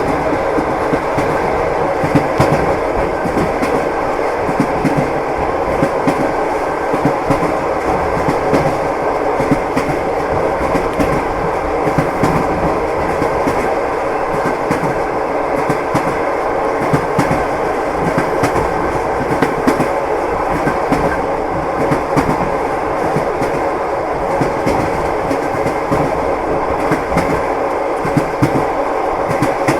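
Train wheels clattering over the rail joints as the carriages roll along at a steady speed: a continuous rumble scattered with many small clicks.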